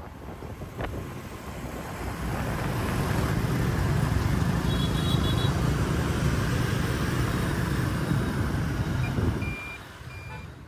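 Riding on a motor scooter in dense scooter traffic: steady engine and road noise with heavy wind rush on the microphone, building over the first couple of seconds and easing off near the end. A few short high beeps sound about five seconds in and again about nine seconds in.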